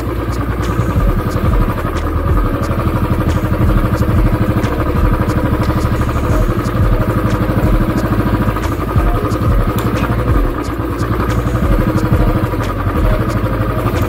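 Royal Enfield Classic 350's single-cylinder engine running in a steady stream of firing pulses as the motorcycle is ridden along a rutted dirt track, with scattered light clicks and rattles.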